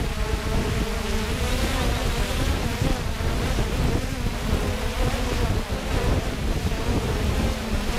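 3DR Solo quadcopter's electric motors and propellers buzzing in flight, the pitch wavering as the motors change speed, heard through the GoPro mounted on the drone, with wind rumbling on its microphone.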